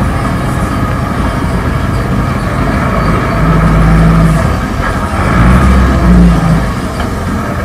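Zetor 6340 tractor's diesel engine running under load inside the cab, with a steady drone and rattle; the low rumble swells twice as the engine pulls harder.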